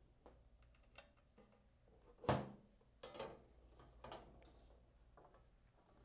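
A few light clicks of a screw being worked loose, then a sharp knock about two seconds in and several softer knocks as the Muse laser cutter's side panel is lifted off its case and handled.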